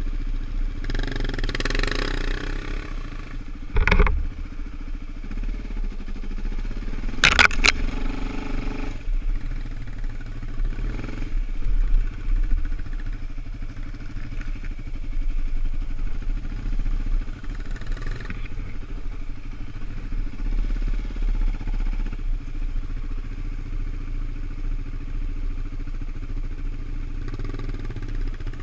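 Sport quad engines running steadily at a slow trail pace, heard from onboard one of the quads. There is a sharp knock about four seconds in and a short cluster of knocks at about seven and a half seconds.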